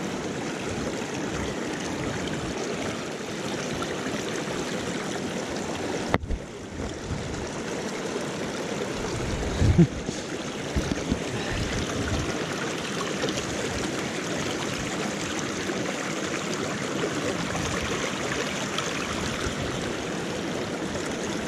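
Shallow rocky stream rushing steadily over stones and boulders, with a brief low bump about ten seconds in.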